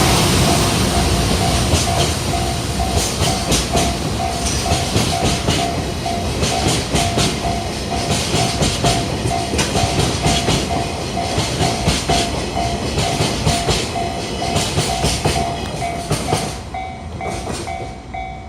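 Freight train wagons rolling past, their wheels clacking over the rail joints in quick runs, while a level-crossing warning bell rings steadily about twice a second. The wheel noise fades near the end as the train clears the crossing, leaving the bell.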